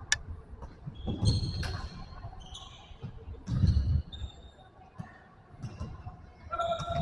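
Futsal being played on an indoor court: a sharp ball strike near the start, then heavier thuds of the ball, with short high squeaks scattered through.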